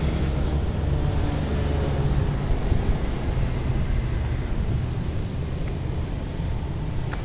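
Street traffic: a steady low rumble of motorbikes and cars going by on the road.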